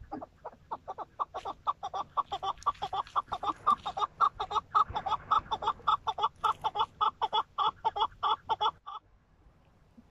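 First-year young chukar partridge calling: a long rapid run of clucking notes, about five a second, building up and then stopping abruptly near the end.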